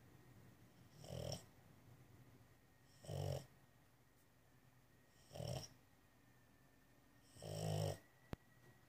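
A sleeping bulldog snoring, four short rasping snores about two seconds apart, the last a little longer. A single sharp click sounds near the end.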